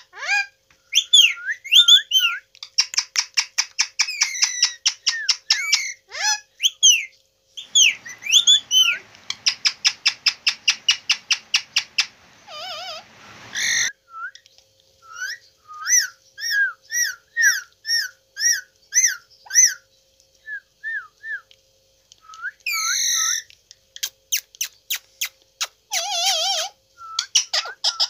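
Indian ringneck parakeet whistling and chirping: fast trills of rapidly repeated notes, then a run of short rising whistles about two a second, with a couple of harsher calls near the end.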